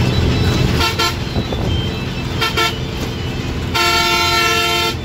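Bus engine running with a steady low rumble heard from inside the cabin, while a bus horn gives two quick double toots and then one long blast of about a second near the end.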